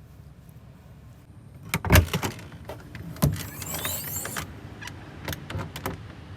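A quiet stretch, then a cluster of sharp clicks and knocks, a short rasping slide and a few more scattered clicks, like a door, latch or window being worked by hand.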